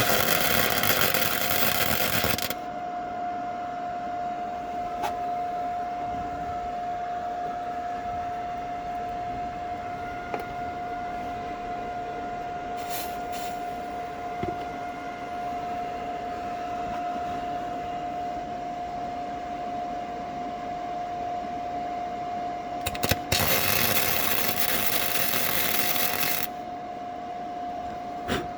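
A 100-volt welder's arc crackling in two short bursts, one at the start and one about 23 seconds in, as weld is laid on a steel car frame to build up metal in a dent. Between and under the bursts a steady humming tone runs on.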